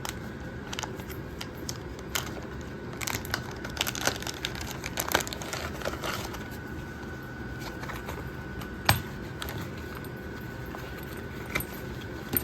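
Small items in a rifle box's accessory compartment being handled: scattered clicks, clinks and light rattling, with one sharp click a little before nine seconds, over a steady low hum.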